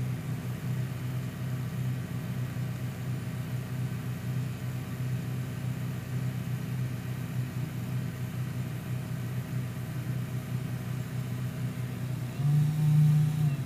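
Car engine idling steadily, heard from inside the cabin, with the air-conditioning compressor still engaged. Near the end a louder steady hum swells for about a second.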